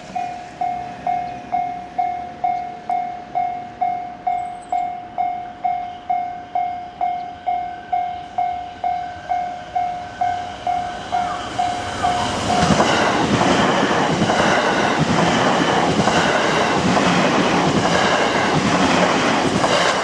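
Japanese level-crossing warning bell dinging steadily, about one and a half strokes a second. About twelve seconds in, an electric train reaches the crossing and passes, its wheels clattering over the rail joints and drowning out the bell.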